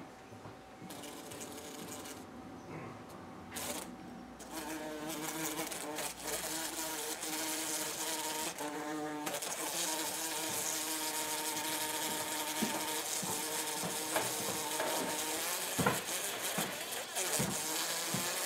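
Bumblebee buzzing against a window pane, a droning buzz that gets louder about four seconds in and shifts in pitch now and then.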